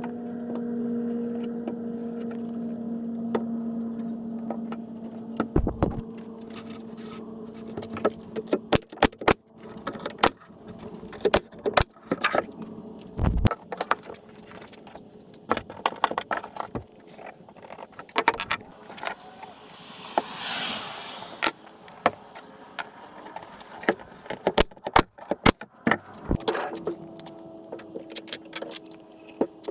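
Pine boards being laid and brad-nailed into a tabletop: an irregular string of sharp clicks and knocks. Under them runs a steady hum that fades out about ten seconds in and comes back near the end.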